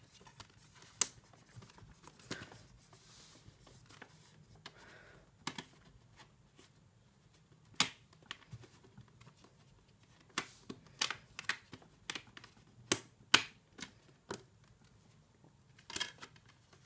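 Scattered sharp clicks and taps of a plastic multi-disc DVD case and its discs being handled, coming thicker and faster between about ten and fourteen seconds in.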